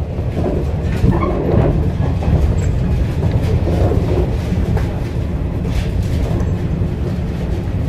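415-series electric multiple unit running along the track, heard from inside the cab: a steady low rumble of wheels and running gear with a few sharp clicks.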